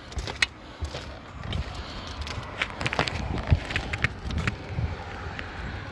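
Footsteps and boot scuffs on asphalt roof shingles: an irregular run of short clicks and knocks over a low rumble.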